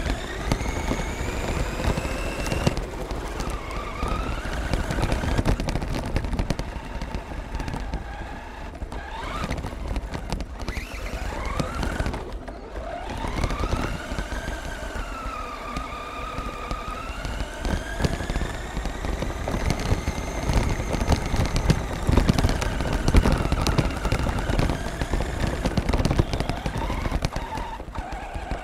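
Onboard sound of a Redcat Volcano RC truck driving over gravel and grass: the motor and gears whine, rising and falling in pitch with the throttle, over a steady rattle of tyres and chassis on the rough ground.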